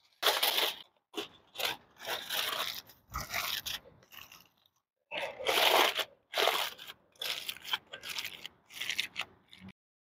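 Aluminium foil crinkling and crunching in irregular handfuls, as if being wrapped or folded around a roast.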